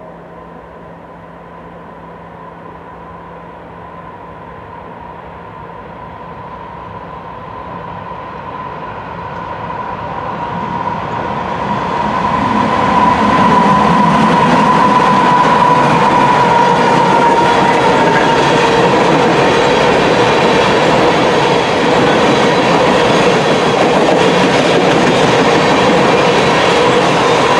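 Norfolk Southern freight train approaching and passing. The diesel locomotives, an NS unit leading and a BNSF unit trailing, grow louder for about thirteen seconds, then a long string of tank cars rolls by with a steady, loud rolling noise.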